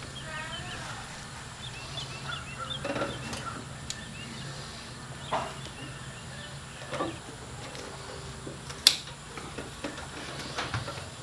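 Farm poultry calling, a warbling call in the first second followed by short chirps, over a steady low hum. A few sharp knocks come later, the loudest a single click near the end.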